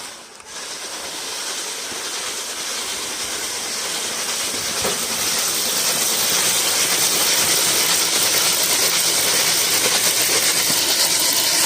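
Traxxas TRX4 K10 High Trail Edition RC truck driving on its stock electric motor and 3S battery, the motor and tyres on the ground making a steady hiss that grows gradually louder.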